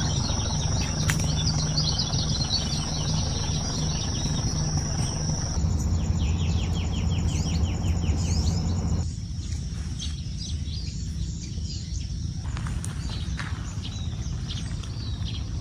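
Outdoor nature sound: a steady high-pitched insect trill and scattered bird chirps over a low rumble. The mix changes abruptly twice, about five and nine seconds in.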